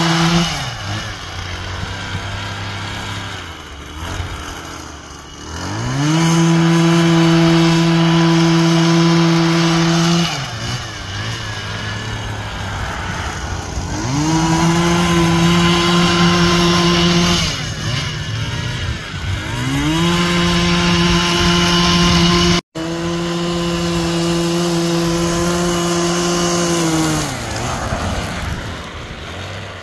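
Small petrol engine of a gravel-raking power tool, repeatedly throttled up to a steady high speed for a few seconds and let back down to a lower idle. After an opening high-speed run drops off, it revs up three more times, and the sound cuts out for an instant during the last run before it falls back near the end.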